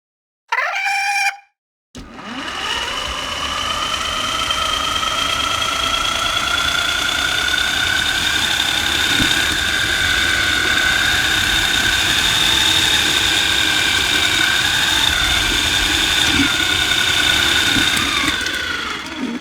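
Star Wars Imperial mouse droid (MSE-6) drive sound effect: a short falling chirp, then a steady high electric-motor whine with two held tones that creep slightly up in pitch, fading out near the end.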